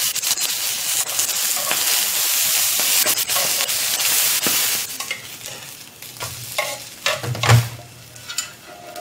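Banana-leaf parcels sizzling in an oiled grill pan over a portable gas camping stove, with metal tongs clicking against the pan as the parcels are turned. About five seconds in the sizzle falls away to a quieter hiss with a few clinks and a dull knock.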